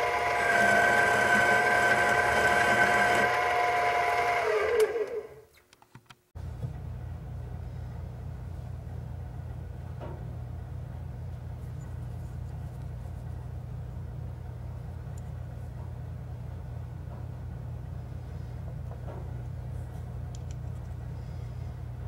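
Mini-lathe motor and spindle running with a steady whine, then switched off and winding down with falling pitch about five seconds in. After a moment of quiet, a steady low hum continues.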